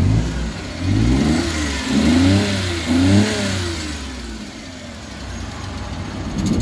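Suzuki F6A three-cylinder engine being revved: three or four quick blips of the throttle in the first few seconds, then dropping back to a steady idle. It is running again on a newly fitted fuel pump.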